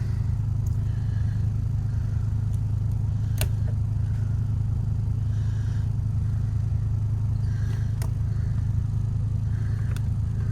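Boat's generator running steadily with an even low hum, under light electrical load. A few sharp clicks sound over it, about three seconds apart.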